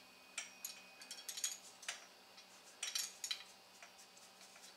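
Light metallic clinks of a 7 mm wrench on the small fasteners of a discone antenna as they are snugged up by hand, a few single ticks and short quick clusters.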